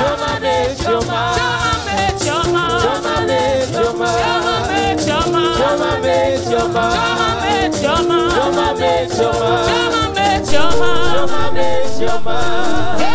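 Live gospel praise music: voices singing over a band with steady held notes and busy percussion including a shaker, getting louder about ten and a half seconds in.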